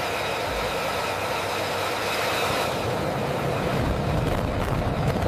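Jet engine running steadily, a wide rushing noise with a high whine over it. The low rumble grows stronger a little past halfway.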